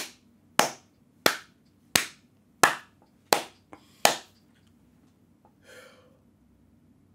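One person's slow clap: seven sharp hand claps about two-thirds of a second apart, stopping about four seconds in.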